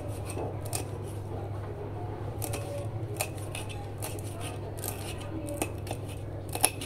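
Small kitchen knife finely chopping green chillies on a chopping board: light, irregular clicks of the blade meeting the board, roughly one or two a second. A steady low hum runs underneath.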